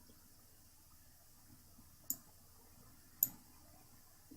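Two sharp computer mouse clicks about a second apart over faint background hiss.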